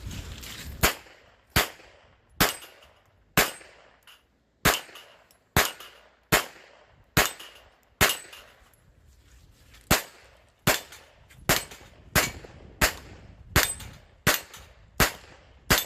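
Pistol gunfire in a 3-gun match: about nineteen single shots at a steady, unhurried pace of a little more than one a second, each a sharp crack with a short echo.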